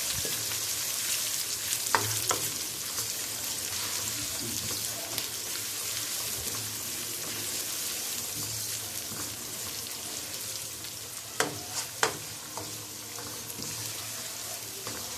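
Chopped onions sizzling in hot oil in a wok while being stirred with a wooden spatula. A few sharp knocks of the spatula against the pan come twice about two seconds in and three times around eleven to twelve seconds in.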